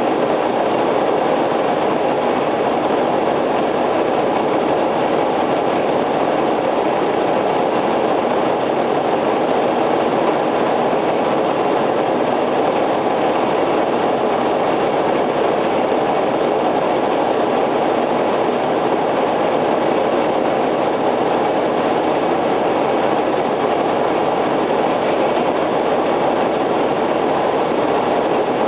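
Steady, unchanging rumble of a fire engine's running engine and road noise, with no siren.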